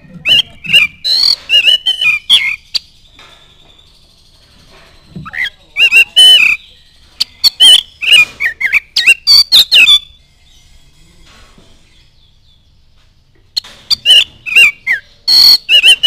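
Oriental magpie-robin singing in three loud bursts of varied whistles mixed with harsh, scratchy notes, with pauses of a few seconds between them.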